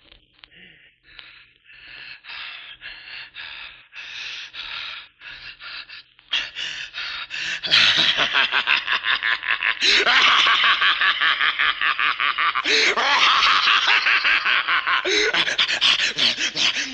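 A man panting hard and fast, a rapid run of breaths that starts faint and builds to loud, heavy gasping about eight seconds in, with a few voiced groans breaking through in the second half. It is staged horror-effect breathing.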